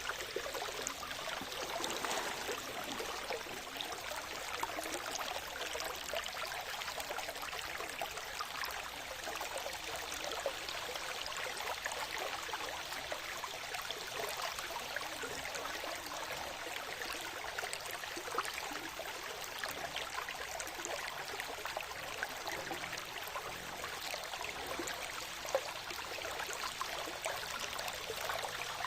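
Water of a small stream or spring flowing steadily with a busy trickling babble. A few sharper splashes stand out now and then.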